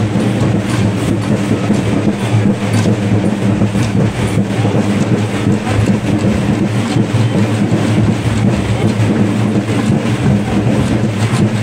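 Loud, steady din of a packed festival crowd around a procession, with a continuous low hum underneath.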